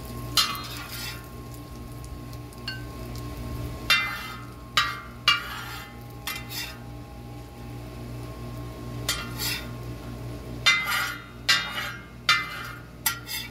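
Long-handled metal spatula scraping and clinking against a steel plow-disk wok (discada) while the last bits of cooked bacon are scooped off it: about ten sharp metal clinks and scrapes at irregular intervals.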